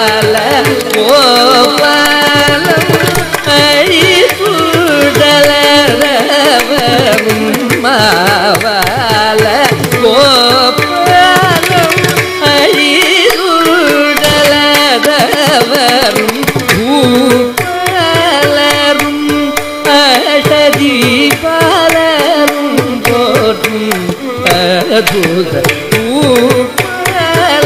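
Carnatic classical music in raga Mohanam, Adi talam: a fast, heavily ornamented melodic line sliding between notes over steady mridangam strokes.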